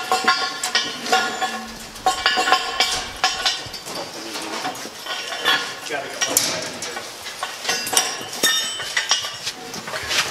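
Steel A-frame tow bar clanking and clinking as its tubes and coupling are worked onto a tank's tow points: irregular metal knocks, each with a short ring.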